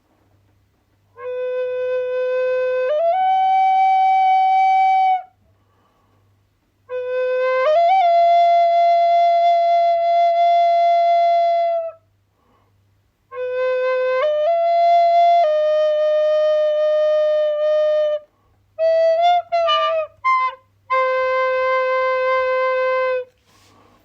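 A flute playing slow phrases of long held notes, each stepping up in pitch, separated by short pauses, with a quick run of short ornamented notes near the end.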